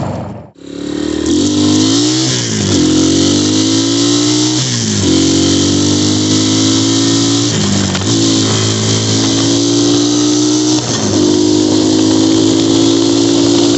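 2019 Xmotos 250cc dirt bike engine pulling hard down the street. Its pitch climbs and falls back about five times as it shifts up through the gears, with steady wind rush on the microphone. The sound cuts out briefly about half a second in.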